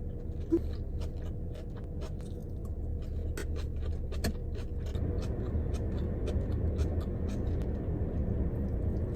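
Steady low rumble inside a car cabin, with a scattering of light, irregular ticks and taps that grow more frequent after a few seconds.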